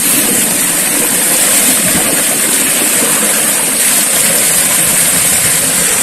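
Waterfall, a loud steady rush of falling water with no change in strength.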